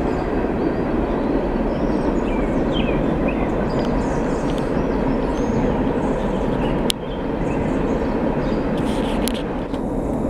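A train rumbling steadily past along the river.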